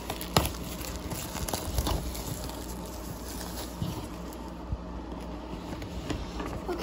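Shrink-wrapped cardboard box being handled: plastic wrap rustling, with a few sharp clicks in the first two seconds and quieter handling after.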